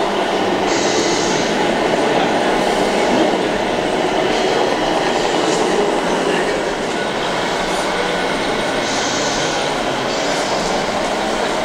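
Steady rumbling mix of a busy indoor RC-truck track, with two short hisses, about a second in and about nine seconds in.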